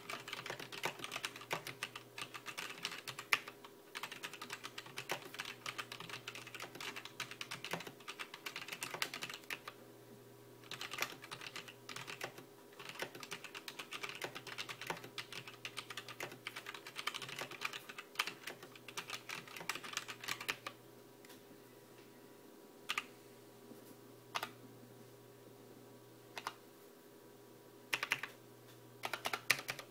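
Typing on a Zalman ZM-K500 mechanical keyboard with linear, red-stemmed non-Cherry switches: a fast, continuous run of keystrokes with a short pause about ten seconds in. Near the end the typing gives way to a few separate key presses.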